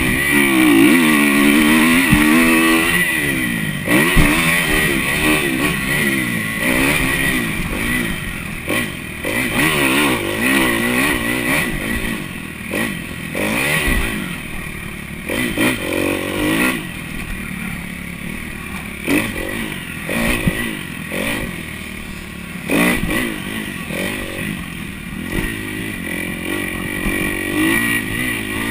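Kawasaki KX250F motocross bike's four-stroke single-cylinder engine, heard close up while riding, revving up and down again and again, its pitch climbing and dropping through throttle and gear changes. Scattered clattering knocks come from the bike going over the rough, rutted dirt.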